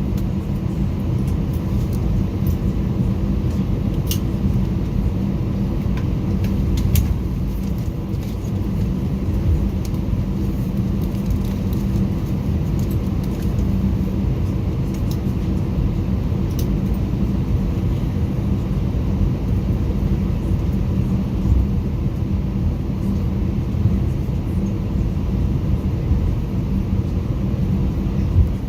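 Airbus A320 jet engines and airflow heard from inside the cabin: a steady low rumble with a constant hum, with a few light ticks and rattles.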